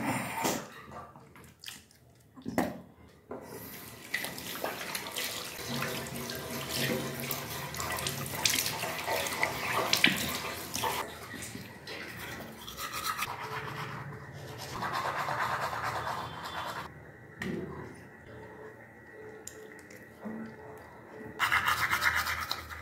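Manual toothbrush scrubbing teeth in quick back-and-forth strokes, the bristles making a continuous scratchy brushing sound that gets louder near the end.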